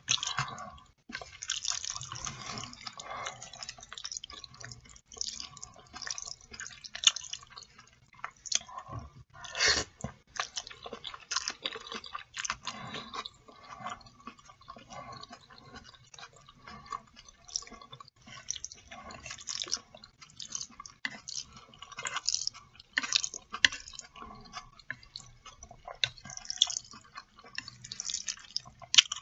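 Close-up eating sounds of a person chewing black bean sauce noodles (jajangmyeon): an irregular, continuous run of small wet mouth clicks and smacks.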